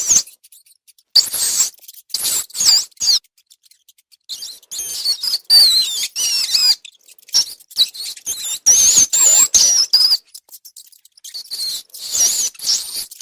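Rats squeaking in bouts of high, wavering squeaks mixed with scratchy rustling, with brief quieter pauses in between.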